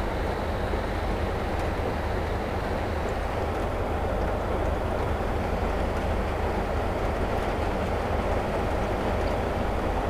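Steady rumbling background noise with a low hum, unchanging throughout.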